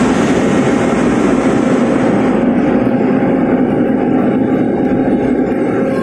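A ship's deck crane hydraulic machinery running during crane operation, heard inside the crane house: a very loud, steady mechanical din with a continuous hum. The noise comes from the hydraulics.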